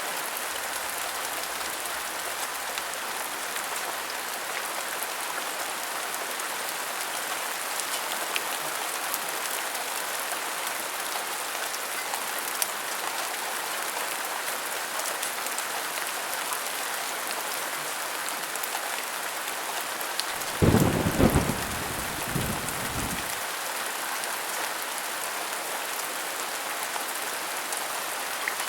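Steady heavy rain falling, with scattered drop ticks. About twenty seconds in, a short low roll of thunder lasts some three seconds and is the loudest part.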